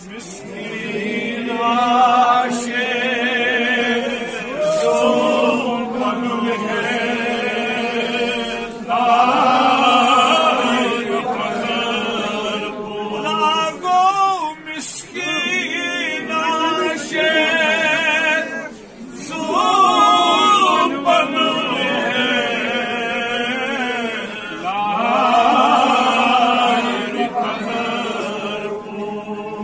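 A man sings a devotional manqabat in long, ornamented phrases with a wavering vibrato, breaking only for brief breaths. Under the voice runs a steady, held drone.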